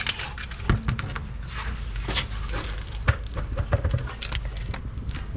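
Irregular metallic clicks, knocks and scrapes from hand tools and rear disc-brake parts being worked loose and removed, over a steady low rumble.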